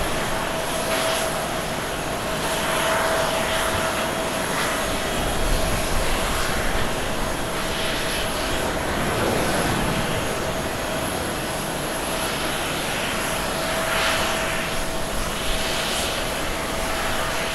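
Boeing 777 jet engines at takeoff thrust as the airliner rolls down the runway, lifts off and climbs away: a steady, level rumble with a constant mid-pitched whine running through it.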